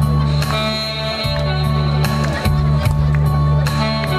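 Saxophone playing a melody live over amplified accompaniment with a strong bass line and a steady drum beat.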